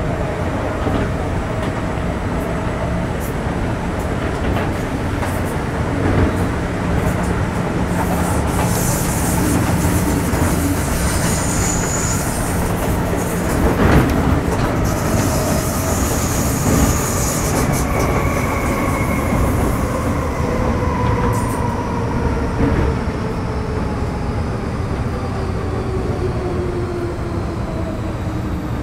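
Running sound inside an MTR Metro Cammell M-Train (CM-Stock) electric multiple unit with GEC GTO chopper traction: a steady rumble of wheels on rail. High-pitched wheel squeal comes twice around the middle, and the traction whine falls steadily in pitch through the second half as the train slows.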